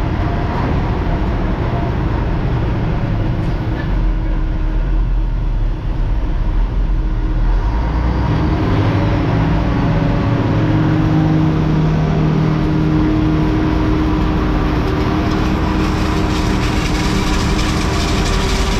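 Old Mack truck's diesel engine running steadily while working in the field, its engine note shifting a little about halfway through.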